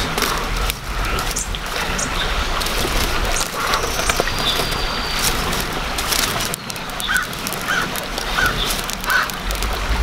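Short animal or bird calls over a busy outdoor background, with a quick run of four short calls near the end.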